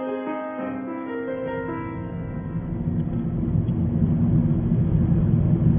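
Solo piano music that ends about a second in, giving way to the steady low rumble of a car driving on the road, heard from inside the cabin and growing louder.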